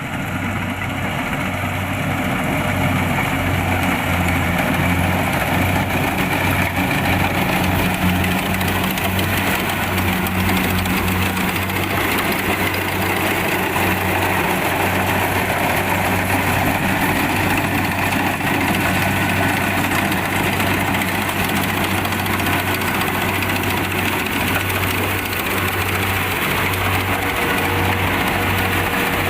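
Kubota DC-70 Plus rice combine harvester running steadily: a low diesel engine drone under a dense mechanical din, starting abruptly at the opening.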